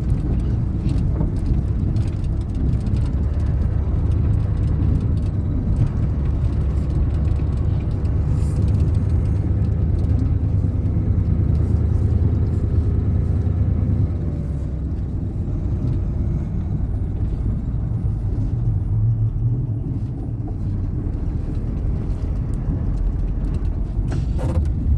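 A vehicle driving slowly through deep snow, its engine and tyres making a steady low rumble. The rumble is strongest for several seconds and eases about fourteen seconds in.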